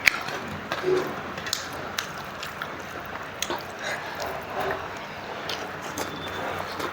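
Close-up eating sounds: wet squishing and smacking as a rice dish is eaten, with scattered small clicks and a sharp click right at the start.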